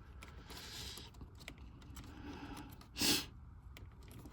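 Faint small clicks and handling noises from a plastic wiring connector as a terminal pin is worked into it, with a short sharp breath about three seconds in.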